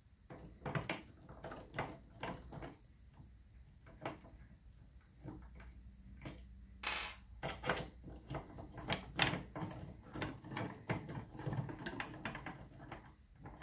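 Irregular light clicks, taps and scrapes of a hex key working a screw out of a plastic machine housing while the parts are handled, with a sharper knock about seven seconds in.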